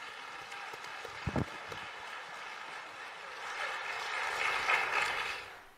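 Audience applauding, swelling a little after the middle and fading out near the end, with one low thump a little over a second in.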